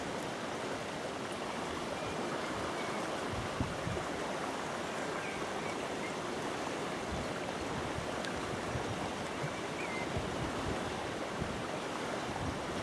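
A small river in flood flowing fast over a submerged grassy bank: a steady, even rush of water.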